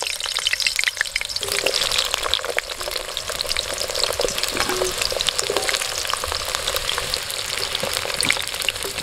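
New potato chunks deep-frying in hot mustard oil in a karahi: a steady, dense sizzle full of fine crackles.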